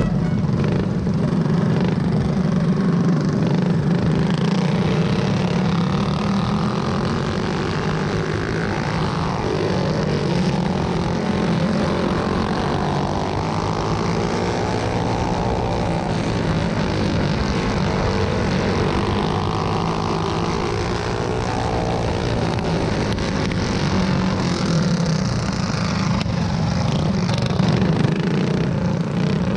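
Go-kart engines running at racing speed, heard from onboard a kart, steady, with the engine pitch rising and falling slowly through the corners.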